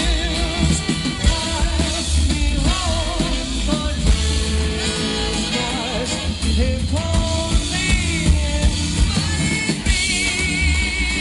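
Live little big band playing with a lead singer: wavering held vocal notes over a steady bass and rhythm section.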